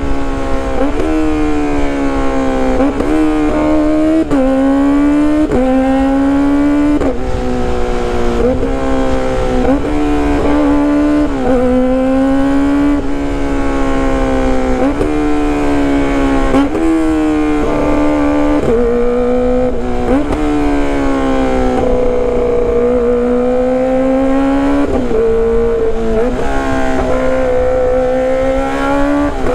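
Kawasaki ZX-25RR's inline-four engine through a loud aftermarket exhaust, held at high revs while riding. The pitch briefly dips and climbs back every second or two as the throttle is rolled off and on.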